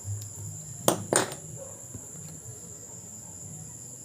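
Steady high-pitched insect trill, like crickets, with two sharp clicks about a second in.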